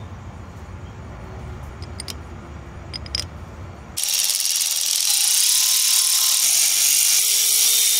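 A few light clicks of metal parts, then about halfway through a loud, hissy run of rapid ratchet clicking that starts and cuts off abruptly: a ratchet wrench tightening down the head of a rebuilt piston pump.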